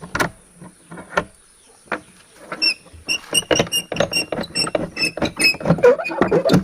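A few separate knocks and scuffs, then from about two and a half seconds in a dense, irregular clatter of knocks with a faint, repeated high ringing through it.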